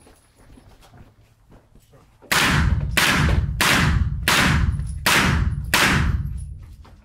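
Six shots from a 9×19 mm Luvo LA-15 AR-style low-velocity rifle, fired about two-thirds of a second apart starting a little over two seconds in, each one ringing in the reverberant indoor range hall.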